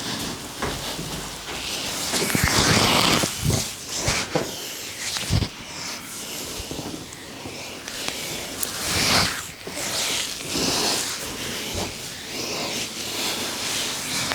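Hands massaging an oiled scalp and hair: swelling and fading rubbing noise, with a few short sharp taps.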